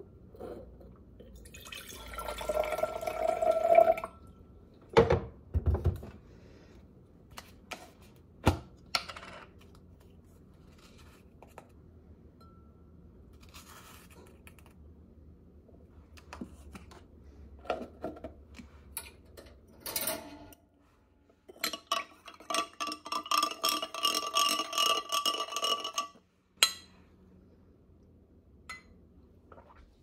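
Dishes and cutlery clinking and knocking: a swelling rush of sound early on, several sharp knocks, and a run of rapid ringing clinks for about four seconds near the end.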